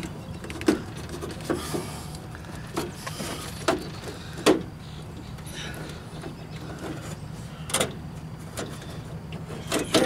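Scattered metallic clicks and knocks from the inside latch rods and handle linkage being worked by hand inside a steel Jeep CJ door, with about half a dozen sharp ones spread out, over a steady low hum.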